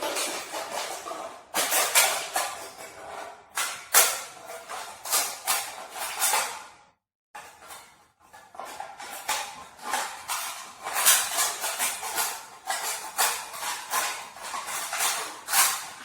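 A thin aluminium beer can being cut open and a piece cut out of it: a run of rapid, irregular crunching and scraping strokes of the thin metal, broken off sharply for a moment about seven seconds in.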